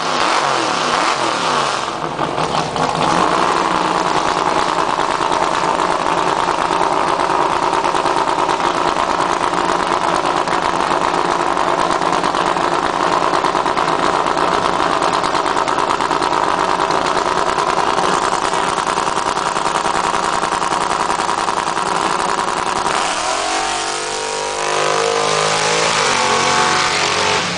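Chevrolet Malibu's engine and exhaust revving up over the first couple of seconds, then held at high, steady revs for about twenty seconds; near the end the revs drop and climb again.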